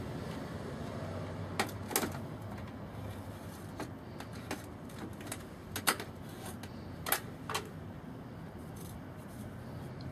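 A few light, sharp taps and clicks at irregular intervals over a steady low hum.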